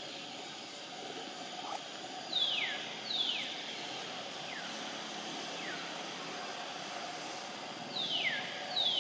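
A bird calling: short whistles that slide sharply down in pitch, two in quick succession, a couple of fainter ones, then another pair, over a steady background hiss.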